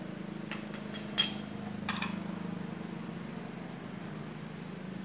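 Small metal dental handpiece parts clinking as they are handled and set down: several light, ringing clinks in the first two seconds, the sharpest a little over a second in, over a steady low hum.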